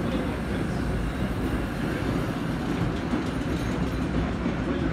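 A vintage 1930s R1-9 subway train running past a station platform: the steady low rumble of its cars' wheels on the rails.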